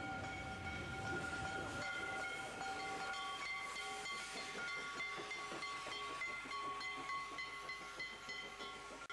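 Steam locomotive whistles blowing in long, steady blasts over the hiss of escaping steam. About two to three seconds in, one whistle chord gives way to another at a different pitch, and a low rumble of the engines fades.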